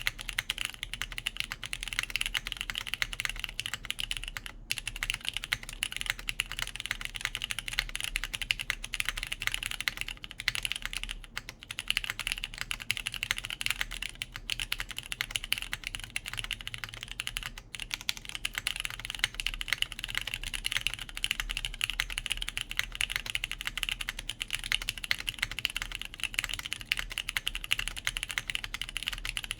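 Continuous fast typing on a JJW Cloudline V2 mechanical keyboard in 70A o-ring mount, with lubed Cherry MX Brown tactile switches, a polypropylene plate and GMK ABS keycaps, a dense stream of keystroke clicks with a few brief pauses.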